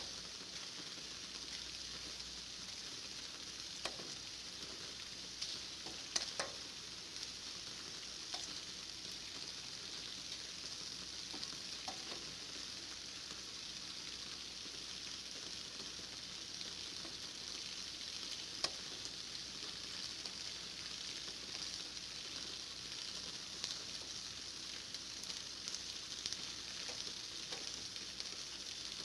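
Steady rain falling, an even hiss of drops, with the odd louder drip ticking here and there.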